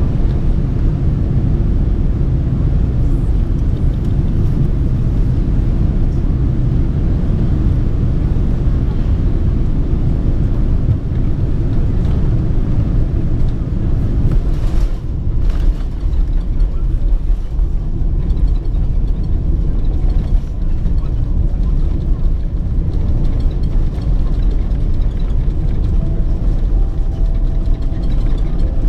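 Cabin noise of a Boeing 777-300ER landing, heard from a window seat behind the wing: a steady low rumble of airflow and engines on short final, with a brief jolt about halfway through as the wheels touch down, then the rumble of the landing roll with the spoilers raised.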